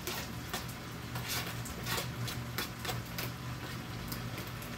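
Chicken and vegetables crackling in a frying pan, with irregular ticks and pops over a steady low hum, as chopped scallion and thyme are tipped in.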